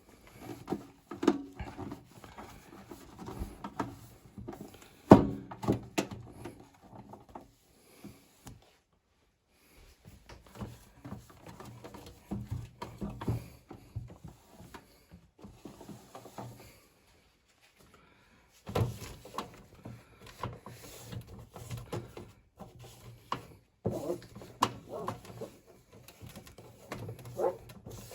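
Scrubbing the inside of a microwave with a wet tissue: irregular rubbing with light knocks and thuds against the oven cavity, pausing briefly twice.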